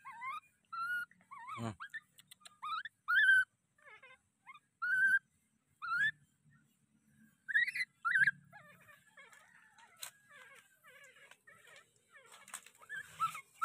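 Baby monkey crying with short, high, squeaky whimpers, about one a second, growing fainter and sparser in the second half.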